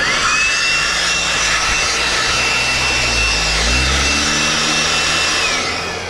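Stihl MSA 160 C battery chainsaw run at full speed: its motor whine climbs quickly to a steady high pitch over a hiss, holds for about five seconds, then winds down near the end.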